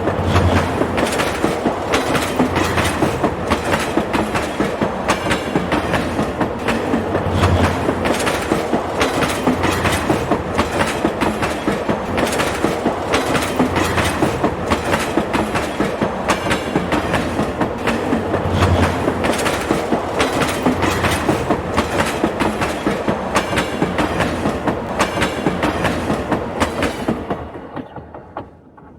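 Train rolling along the track, its wheels clattering over the rail joints in a steady clickety-clack, fading away near the end.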